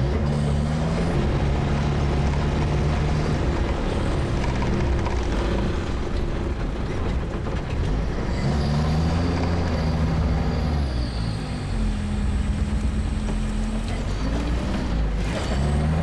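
All-terrain vehicle's engine running as it drives. Its pitch rises and falls twice, about halfway through and again near the end.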